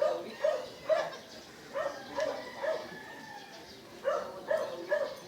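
A dog barking in bursts of about three barks each, three bursts in all.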